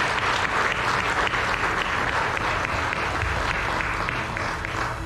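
Congregation clapping and applauding steadily, a dense crackle of many hands, that breaks off abruptly near the end.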